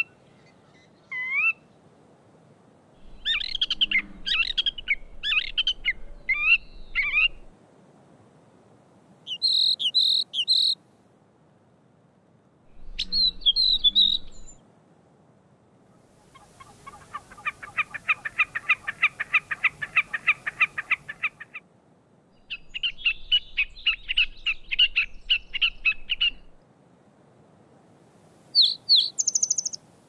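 Gray catbird singing a string of separate phrases with short pauses between them, imitating other birds. In the middle comes a long, even run of rapid repeated notes, its imitation of a Wilson's snipe.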